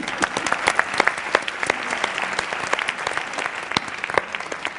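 Large audience applauding: a dense patter of many hands clapping, dying down near the end.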